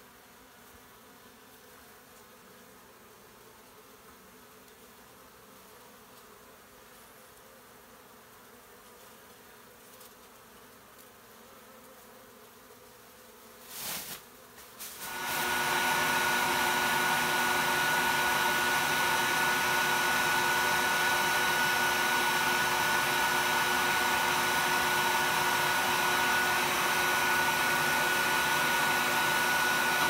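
Honey bees buzzing faintly, then about halfway through a few clicks and a bee vacuum switches on, running loud and steady with a constant whine as it sucks bees off the comb.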